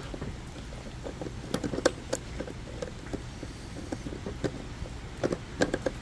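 Scattered small plastic clicks and taps as gloved hands handle and fit a wiring harness connector onto the tail light assembly's bulb socket, with a cluster of clicks a couple of seconds in and another near the end.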